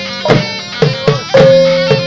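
Simalungun gonrang ensemble music: drums struck in a steady rhythm about twice a second under a long held high tone.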